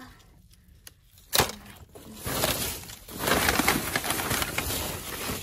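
Rummaging through a basket of nail polish bottles: a sharp click about a second and a half in, then a few seconds of rattling and rustling as the small bottles and papers are moved about.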